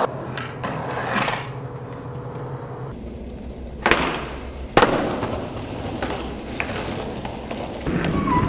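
Skateboard wheels rolling on concrete, with two sharp board impacts about a second apart near the middle: a skater popping off and landing down a stair set.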